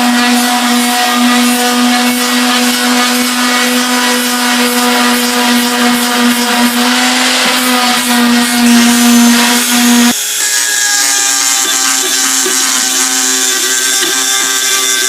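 Shop vac motor running with a steady whine. About ten seconds in it cuts off abruptly and a different sound with several wavering pitches takes over.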